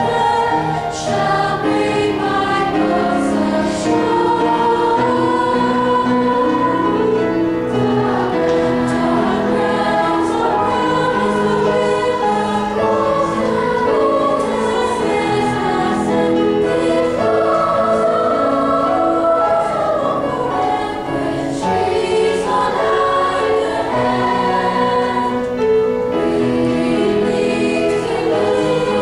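Middle-school choir singing a choral piece with smoothly moving, held melodic lines.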